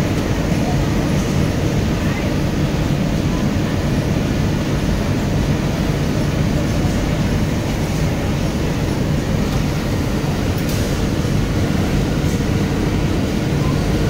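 Steady low rumble and hum of sewing machinery, with a few faint clicks.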